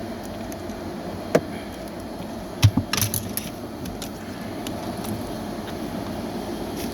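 Hand tools and small parts being handled during the switch removal: a few sharp clicks and clinks, the loudest cluster about two and a half to three seconds in, over a steady background hum.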